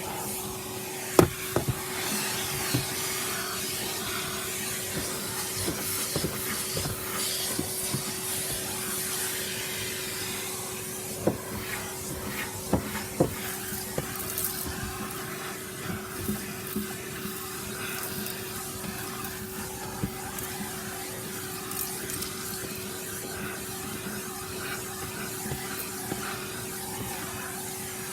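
Vacuum cleaner running steadily as it cleans a car's interior: a constant motor hum over airy suction hiss, with scattered sharp clicks and knocks, most of them near the start and about halfway through.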